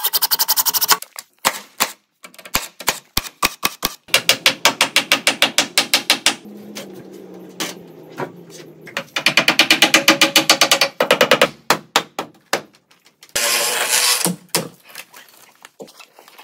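Makita 40V cordless impact driver driving screws into 2x10 framing lumber, in several bursts of a second or two of rapid hammering, with scattered single knocks between the bursts.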